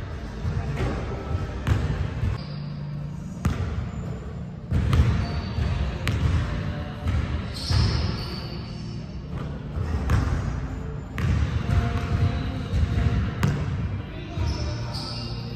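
Basketballs bouncing on a hardwood gym floor, a thud every second or two at irregular intervals.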